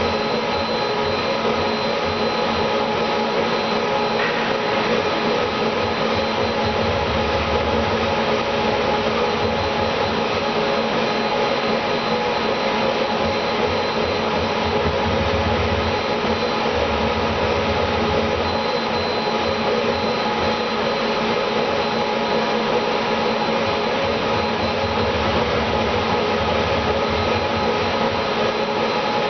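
A motor-driven machine running steadily with a constant whir, and a low hum that cuts in and out every few seconds.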